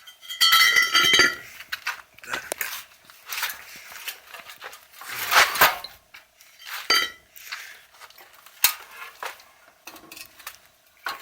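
Metal clanking and knocking as something is set under the van's front axle beam to raise it: a ringing metallic clank about half a second in, then scattered knocks and scrapes.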